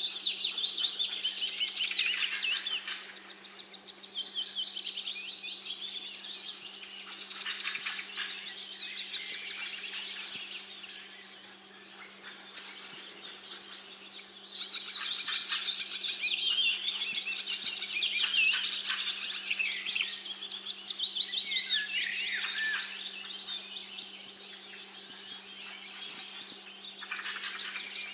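A chorus of many small birds chirping and singing at once in fast, overlapping trills, swelling and thinning in waves, over a faint steady low hum.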